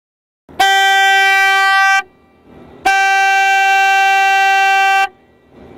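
Two long, steady blasts of an air horn, the first about a second and a half, the second about two seconds.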